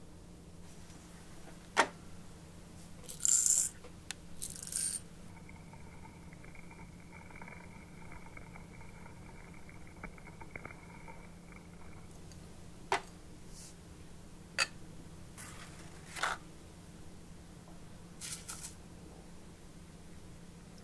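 Scattered sharp clicks and short metallic rattles and scrapes from handling a manual coffee grinder. A faint steady high tone runs for several seconds in the middle.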